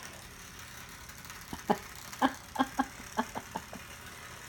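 A quick run of about nine sharp clicks and taps, irregularly spaced over about two seconds, the loudest near the start.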